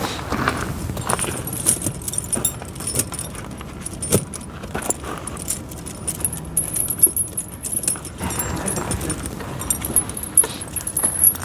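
Steel tractor tire chains (pewag doppelspur) jingling and clinking, links knocking together in irregular rattles as the chain is handled.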